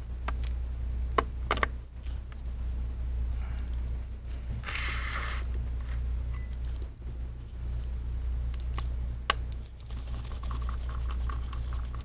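Light clicks and taps of small parts being handled on a workbench over a steady low hum, with a short scraping rustle about five seconds in.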